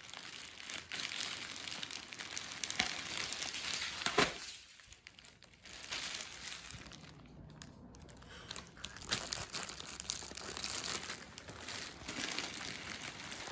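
Parcel packaging being torn open and crumpled by hand: irregular crinkling and rustling, with a short lull about halfway through.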